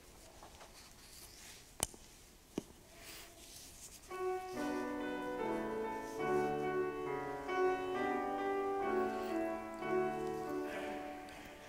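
Piano playing a slow, quiet introduction of held chords, the lead-in to the sung responsorial psalm. It enters about four seconds in, after two faint knocks.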